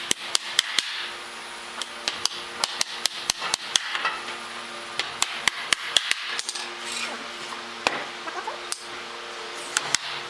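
Claw hammer driving nails into wooden pallet boards: sharp strikes in quick runs of two or three a second, with short pauses between runs.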